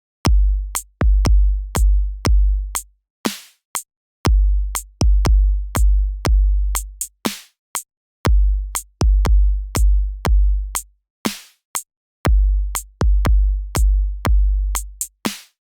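Electronic drum-machine beat from the VPS Avenger software synthesizer: deep sub-bass kicks with sharp clicky hits and a noisy snare-like hit closing each bar, the same one-bar pattern repeating about every four seconds.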